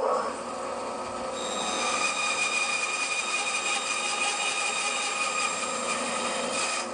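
Bandsaw running and cutting into a piece of pale hardwood, a steady machine whine. A higher-pitched singing tone joins from about a second in while the blade is in the wood, and fades just before the end.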